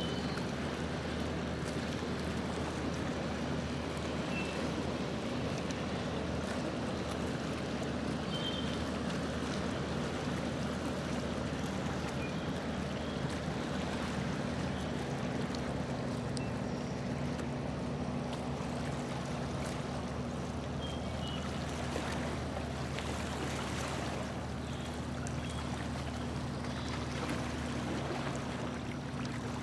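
A motorboat's engine running at a steady speed as the boat cruises across the lake, with water rushing along the hull.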